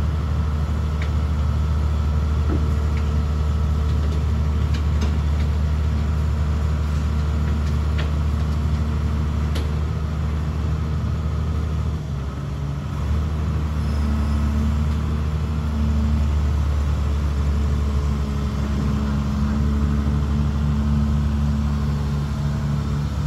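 Tracked excavator's diesel engine running with a steady deep drone, dipping briefly about halfway through and rising under load a couple of times in the second half.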